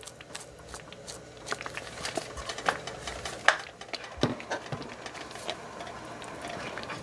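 Light clicks and taps of a plastic spice shaker as cayenne pepper is shaken into a pot of chowder, with a louder knock a little past four seconds in, then a wooden spoon starting to stir the thick soup in a stainless steel pot.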